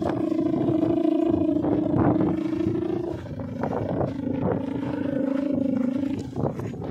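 Hummer (guangan) on a big Balinese bebean kite droning in strong wind: one steady low hum with an overtone, dropping slightly in pitch about three seconds in, over wind rumble on the microphone.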